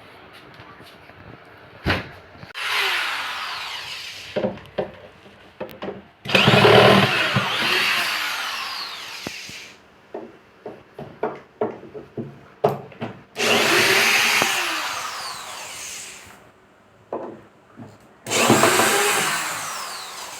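Handheld electric drill running in four bursts of a few seconds each, with short clicks and knocks between them: screws being driven to fit a speaker into a monitor cabinet.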